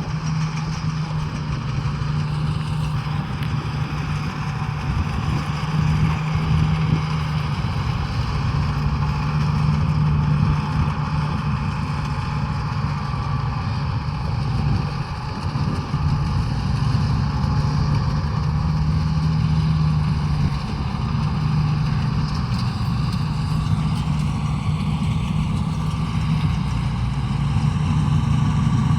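Engine of a rice-harvesting machine running steadily at an even speed, with a constant low hum.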